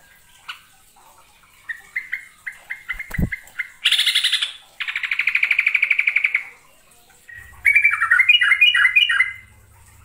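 Yellow-vented bulbul (trucukan) calling: a run of short chirps, then a harsh burst and a fast rattling chatter lasting about two seconds, then bubbly warbled phrases near the end. A single dull knock comes about three seconds in.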